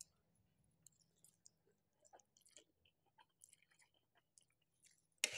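Faint chewing and small wet mouth clicks of someone eating spicy instant noodles close to the microphone, with a louder, noisier mouth sound starting just before the end.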